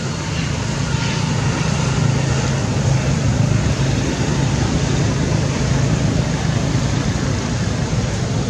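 Steady low engine drone over a broad hiss, swelling slightly about a second in.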